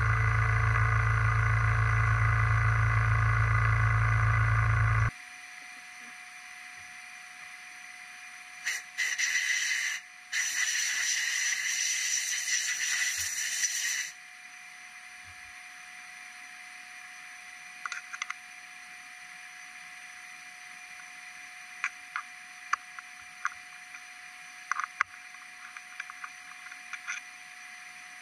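CNC milling machine chamfering an aluminum part under flood coolant: spindle and coolant spray running steadily, stopping abruptly about five seconds in. A hiss follows for several seconds in the middle, then a faint steady hum with scattered light clicks and taps.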